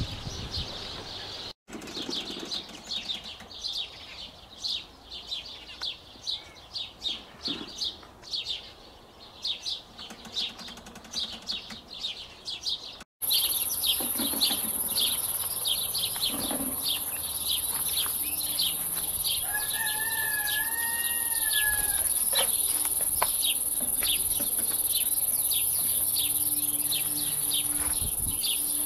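Outdoor ambience of insects chirping in a steady high rhythm, a few chirps a second, joined after about thirteen seconds by a constant high-pitched insect buzz. A hen gives a short drawn-out call about twenty seconds in.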